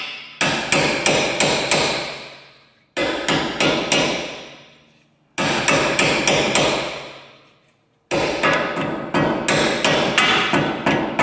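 Metal hammer blows on the front wheel carrier of an Audi A4 B7, driving the upper control arms' ball joints out of their clamp. The strikes come in quick runs of about four a second, with short pauses between runs, each run ringing away before the next.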